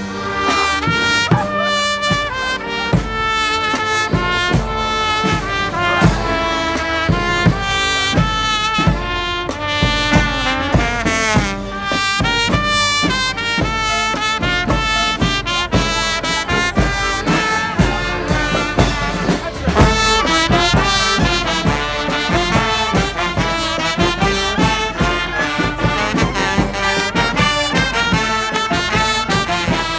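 Live brass band playing a lively tune: trumpets and trombones carrying the melody over a steady drum beat.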